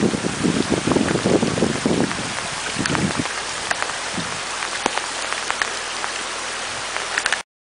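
Heavy rain falling on wet ground, a steady hiss dotted with the clicks of single drops. A heavier rushing sound fills the first three seconds and then dies away, and the sound cuts off suddenly near the end.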